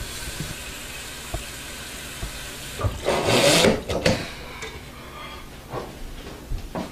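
Water running at a kitchen counter as a steady hiss, with a louder rush of water about three seconds in, followed by a few light knocks.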